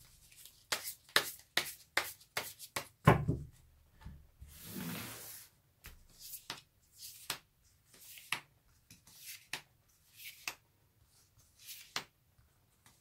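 Tarot cards handled on a cloth-covered table: a quick run of sharp taps and clicks as the deck is gathered, a soft brushing slide about five seconds in as it is spread into a fan, then scattered single clicks as cards are drawn out and laid down.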